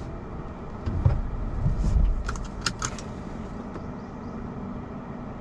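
Rivian R1T electric pickup creeping over a rough dirt trail: low rumbles and thumps from the tyres and suspension, a few sharp clicks and rattles about two to three seconds in, then a steady low hum.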